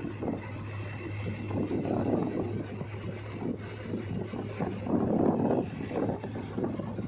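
Diesel engine of a backhoe loader or tractor running steadily with a low hum, under gusty wind on the microphone.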